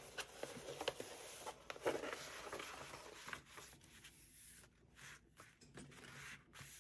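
Faint rustling of a roll of bookcloth being unrolled and smoothed flat by hand on a cutting mat, with a few light taps; it dies down about halfway through.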